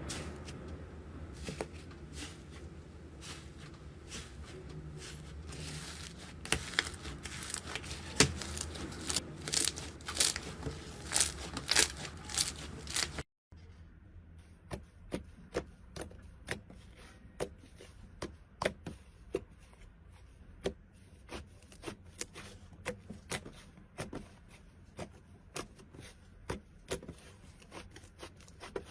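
Slime being squeezed and worked by hand, with many sharp crackling pops and clicks that grow denser and louder toward the middle. About 13 seconds in there is a cut to a quieter stretch of separate pops, roughly one or two a second.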